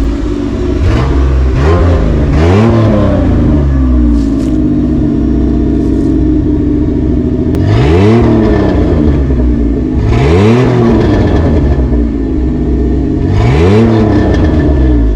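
Ford F-100's six-cylinder Ford Ranger engine being revved: a series of short throttle blips, each rising and falling in pitch. The engine is held at a raised, steady speed for a few seconds a few seconds in. The engine has a deep exhaust note.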